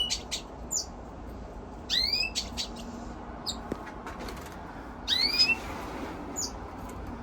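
Small cage finches and canaries calling in an aviary: three loud rising, whistled call notes, about two and three seconds apart, with short high chirps scattered between them.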